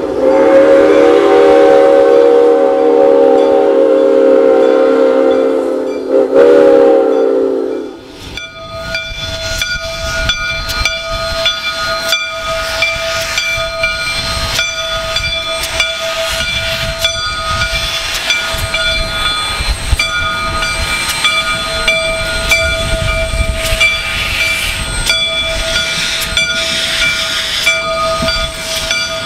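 Soo Line 1003's steam whistle sounds one long chime blast, wavering briefly near its end, and cuts off about eight seconds in. The rest is the steam train's running noise: a dense clatter of wheels on rail with steady high tones over it.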